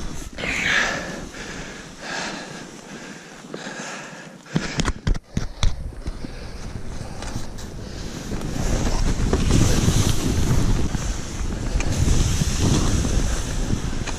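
Skis running through deep powder snow, with wind buffeting the camera microphone. A few sharp knocks come around five seconds in, and the rush of snow and wind grows louder and steadier through the second half.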